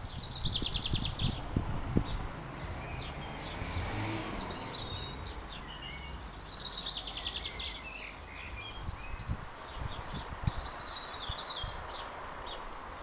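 House martins twittering at the mud nest: a steady run of short chirps and quick rattling trills. Low thumps and rumble from the shaky handheld camera sit underneath, the loudest about two seconds in.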